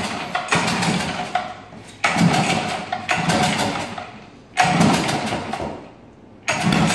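A 3.5 hp Briggs & Stratton single-cylinder engine being pull-started over and over, roughly every two seconds: each yank of the recoil starter gives a short burst of cranking that fades out within about a second, and the engine never settles into a steady run. The engine has just been submerged in water in an attempt to hydrolock it.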